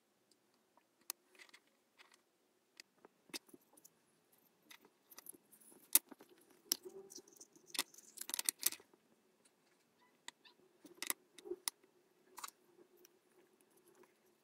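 Handling of a small wooden speaker box and a little speaker driver: scattered light clicks, taps and scrapes of wood and hard parts, thickest in a flurry about six to nine seconds in, over a faint steady hum.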